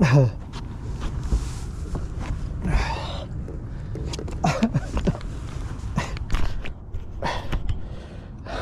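A man's short wordless exclamations and gasps, about five in all, from an angler landing a bass. Sharp clicks and knocks and a steady low rumble run beneath them.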